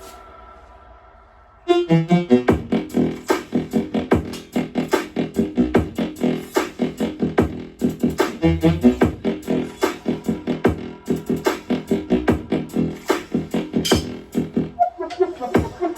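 Electronic music soundtrack: a fading tail, then a pause of under two seconds, then a dense, fast beat with synth notes kicks in.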